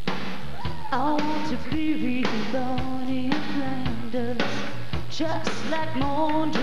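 Rock band playing live, the singer holding long, wavering notes over the band and a steady drum beat.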